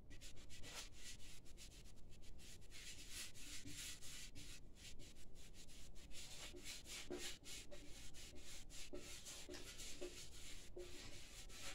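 Paintbrush brushing coating onto the inside of a steel motorcycle fuel tank: a faint, quick, irregular run of scratchy brush strokes.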